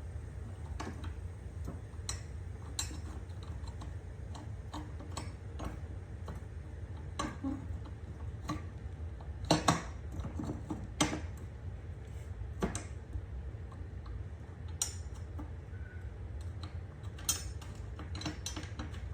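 Irregular metallic clicks and clinks of hand tools and metal parts being handled while a mower blade is refitted, a few louder clanks near the middle, over a steady low hum.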